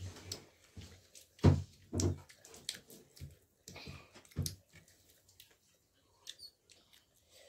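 A child eating by hand from a plate: small clicks and mouth sounds of fingers, food and chewing, with a few sharper knocks of handling the plate, the loudest about a second and a half in.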